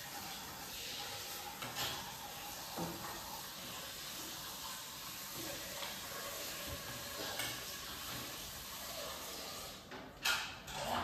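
Steady background hiss with a few light clinks of a serving spoon on plates, then several louder knocks and clatters near the end.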